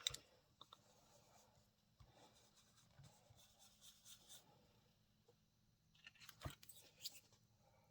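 Faint scratchy swishing of a blending brush working ink through a stencil onto cardstock, with a few light taps, the loudest about six and a half seconds in.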